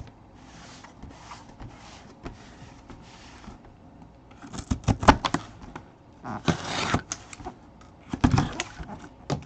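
Cardboard packaging being handled and opened by hand: soft sliding and rustling, then three louder bouts of scraping and rustling with sharp clicks about halfway through and near the end.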